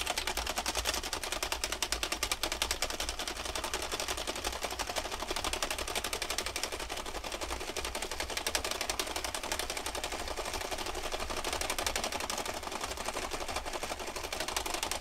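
Sentro 22-needle circular knitting machine with a replacement gear and handle assembly, cranked by hand: a steady, rapid clicking of the needles as it knits round after round, about one round every two seconds.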